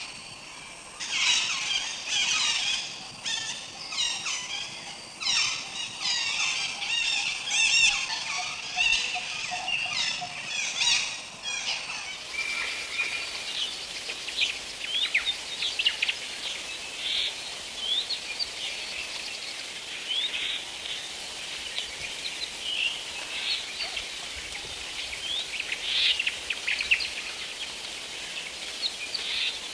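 Forest birds calling. A dense chorus of quick, overlapping calls runs for the first dozen seconds. After a sudden change about twelve seconds in, it gives way to scattered short, sharp chirps.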